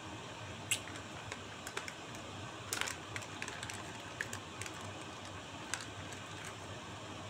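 Scattered light clicks and taps, a few close together about three seconds in, over a steady faint hiss.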